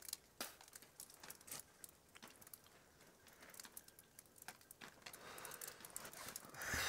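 Faint, irregular ticking of wet snowflakes landing on and around the phone. Near the end a breathy rush of air builds, a long exhale after a drag on a cigarette.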